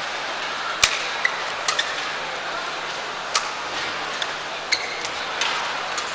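Badminton rally: about five sharp smacks of rackets striking the shuttlecock, a second or more apart, with a few short shoe squeaks on the court over a steady arena hum.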